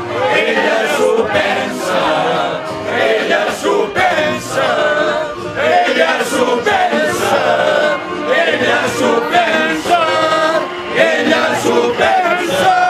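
A group of men singing a song together in chorus, led by one voice amplified through a microphone, over a steady beat.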